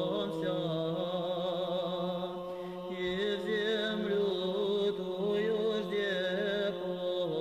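Male monastery choir singing slow Russian Orthodox memorial chant: a low note held steadily underneath while other voices carry a slow melody above it with a marked vibrato.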